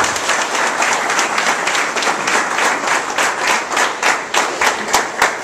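Audience applauding. The claps are dense at first, then thin out near the end into a few separate claps as the applause dies away.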